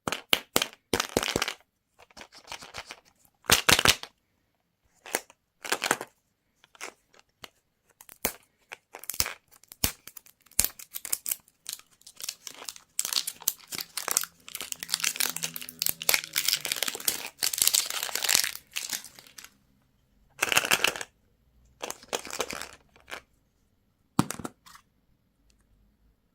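Candy wrappers crinkling and tearing as sweets are unwrapped by hand, in irregular crackly bursts that come thick and fast through the middle stretch.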